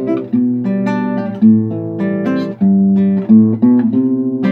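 Acoustic guitar strumming a song introduction, with chords changing about every half second.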